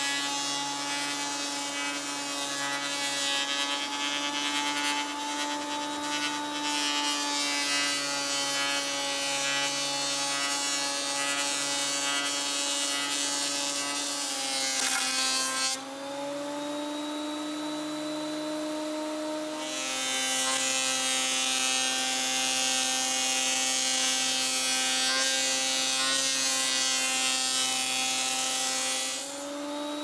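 Delta benchtop thickness planer cutting a board: a steady motor whine under a hiss of cutting, the pitch sagging under load. About halfway through it runs free at a higher pitch for a few seconds. A second pass then starts and ends shortly before the close, when the motor speeds back up. The planer's power feed keeps lurching, leaving lines across the plank.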